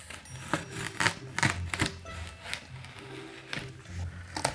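Packaging being pulled off the boxed PC: a string of sharp, irregular crackles and knocks, over quiet background music.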